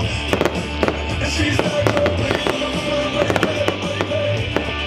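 Show fireworks firing in quick succession, with many sharp bangs and crackles. Music with a steady bass and a held note plays under them.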